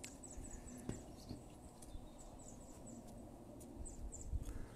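Faint, short, high chirps of small birds, repeating every fraction of a second, over a low rumble that grows louder near the end.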